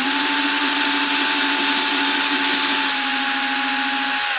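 Cordless drill running at a steady high whine, boring at a rubber bumper foot on the bottom of a hardwood cutting board, then stopping abruptly at the end.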